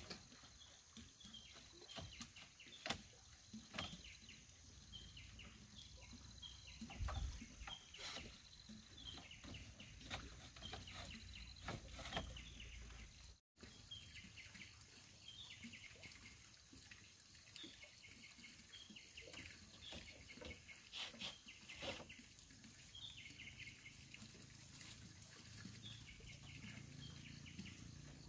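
Faint repeated bird chirps over quiet outdoor ambience, with scattered light clicks and knocks of split bamboo slats being handled and fitted into a fence.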